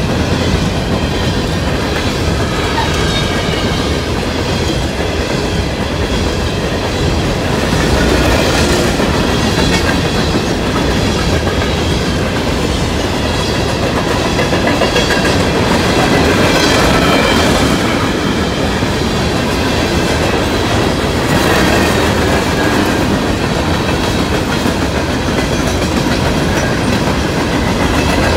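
CSX coal train's hopper cars rolling past close by: a steady rumble with wheel clatter over the rail joints, and thin high squealing tones from the wheels that come and go.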